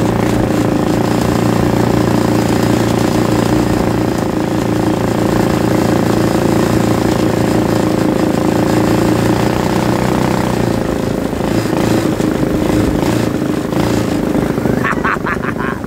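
Go-kart engine running steadily under throttle as the kart drives along. About ten seconds in, its steady note drops away as the throttle eases off.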